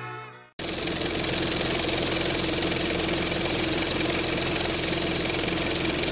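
Background music fades out. About half a second in, a steady mechanical whirring and rattling starts abruptly, an old film projector sound effect.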